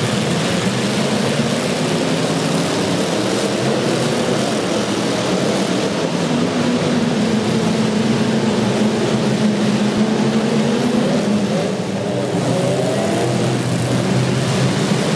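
Demolition derby car engines running loudly, with engine pitch rising and falling as they rev, most plainly in the second half.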